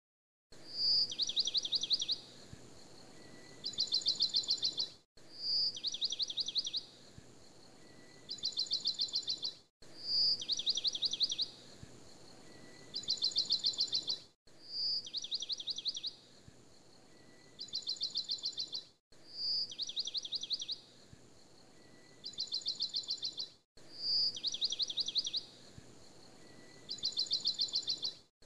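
Looped recording of bird chirps: a single high whistle, then a quick high trill, then a second trill, the same pattern repeating about every five seconds with a brief cut-out between repeats.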